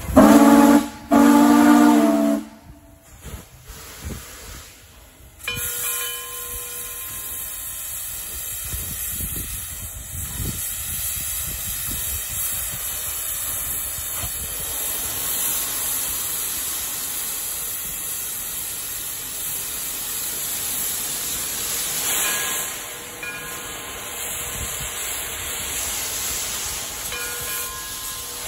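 Frisco 1630, a 2-10-0 steam locomotive, sounds two loud blasts on its steam whistle. After a short lull, a steady hiss of steam from its open cylinder cocks starts about five seconds in and keeps on.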